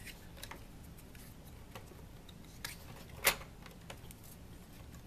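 A few faint, short plastic clicks and taps, the loudest about three seconds in, as a foam dart is handled at the loading chamber of a Nerf Doomlands Vagabond blaster.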